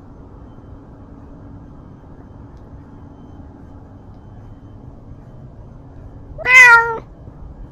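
A domestic shorthair cat gives one loud, short meow of about half a second near the end, very close to the camera on his own collar, over faint steady background noise.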